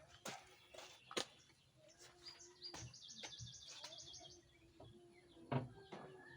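A bird gives a quick run of high chirps, about eight a second, for a couple of seconds. Scattered sharp knocks can be heard, the loudest about five and a half seconds in.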